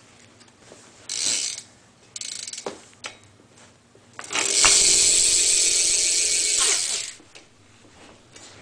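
Loud freewheel buzz of a stock Felt BMX rear hub with a 9-tooth driver, its pawls ratcheting as the wheel spins. Two short spins come about one and two seconds in, then a longer, louder buzz of about three seconds starts around four seconds in.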